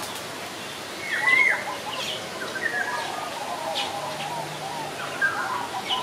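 Several birds chirping and calling over one another, with a louder call that rises and falls about a second in.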